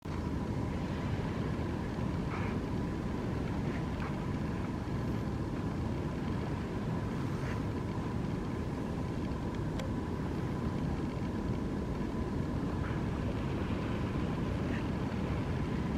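Wind buffeting the microphone on an open beach: a steady low rumble with a faint high steady tone and a few faint ticks.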